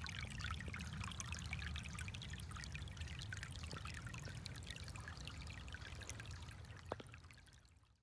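Shallow creek water trickling over rocks, steady, fading out near the end.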